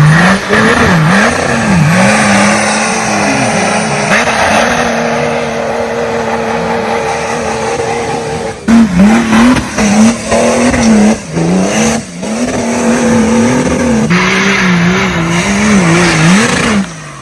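Off-road vehicle engine revving hard, its pitch repeatedly dipping and climbing back, then held high and steady for a few seconds. In the second half the sound breaks off and comes back abruptly several times.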